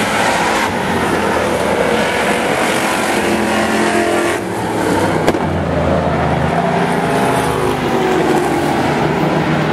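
Engines of a pack of demo race cars running around a short oval track, with a sharp knock about five seconds in.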